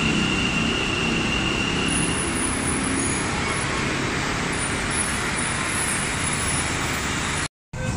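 Namma Metro Green Line train running along the platform of an elevated station: a steady rolling noise of wheels on rail, with a thin high whine over it for the first couple of seconds. The sound drops out completely for a moment near the end.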